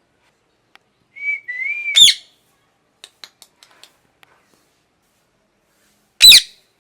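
A parrot whistles a short level note, then gives a loud, sharp call about two seconds in. A few soft clicks follow, and a second loud, sharp call comes near the end.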